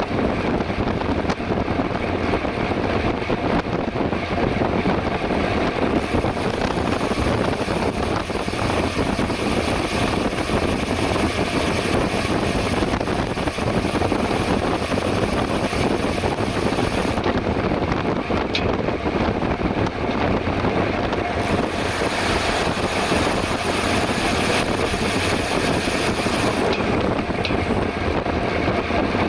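Steady wind rush over the microphone and tyre hum from a mountain bike ridden at speed on a paved road.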